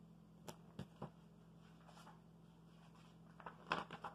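Page of a hardcover picture book being turned in a quiet room: a few faint clicks in the first second, then a short rustle and flap of paper about three and a half seconds in.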